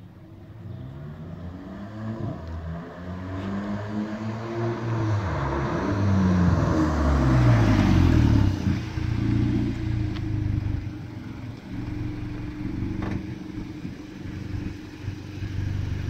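Volkswagen Polo GTI (AW) 2.0 TSI turbocharged four-cylinder with a catless exhaust, approaching with its revs rising and falling and loudest as it passes about eight seconds in, then running steadily at low revs.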